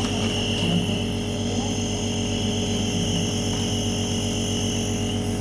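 A small electric motor running steadily, giving a constant low hum with a high whine above it.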